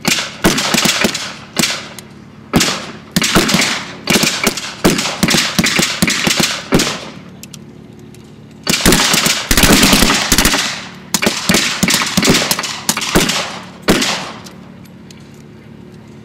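Blank gunfire in a WWII battle re-enactment: irregular single rifle shots, then a dense run of rapid fire about nine seconds in lasting a couple of seconds, then more single shots.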